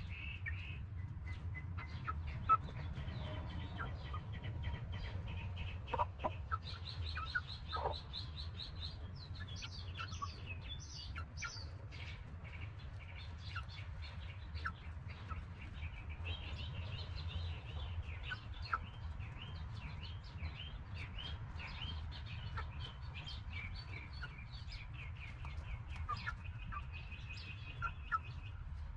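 Backyard hen and older chicks at a feeder, clucking and peeping, with many short high chirps and fast trills from birds in the background. A few sharp clicks stand out, and a steady low rumble runs underneath.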